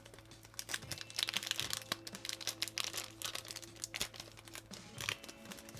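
Packaging crinkling and rustling in irregular crackles as a sticker package is torn open by hand, over soft background music.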